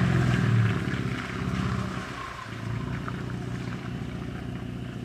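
Ford F-150's 2.7-litre twin-turbo EcoBoost V6 engine under throttle as the pickup pulls up a muddy trail, loud for the first half second, then easing to a steady, quieter run as the truck moves away.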